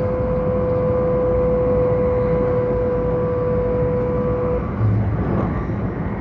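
Taiwan High Speed Rail 700T train running at speed, heard inside the passenger car: a steady rumble with a steady whine over it. The whine cuts out about four and a half seconds in, followed by a brief low thump.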